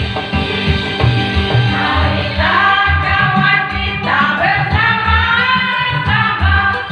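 Live band music with a singer, whose voice comes in about two seconds in over a heavy bass beat.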